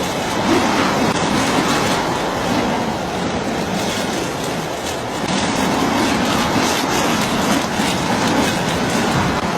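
Steady, loud rushing and rumbling noise of a vehicle in motion, with slight swells.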